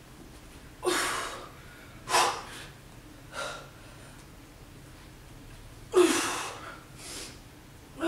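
A woman breathing hard from exertion while doing dive-bomber push-ups: about five sharp, forceful exhales a second or so apart, with a short pause in the middle.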